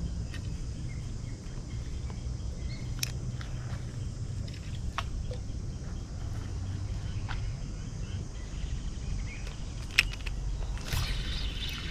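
Outdoor background noise: a steady low rumble with a few sharp clicks scattered through it.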